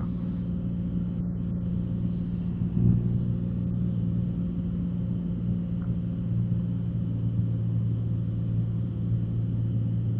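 Cessna 182's piston engine and propeller running with a steady low drone.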